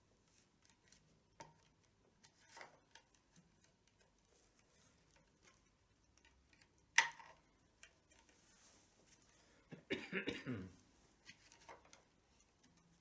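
Faint handling sounds of a tabla's leather badhi strap being pulled tight: scattered light ticks, a sharp click about seven seconds in, and a short rough scrape about ten seconds in.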